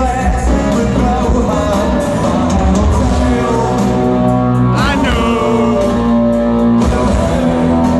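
A rock band playing live through a stadium PA, heard from within the crowd: distorted guitars, bass and drums with a male singing voice, loud and dense throughout, with a sliding vocal or guitar note about five seconds in.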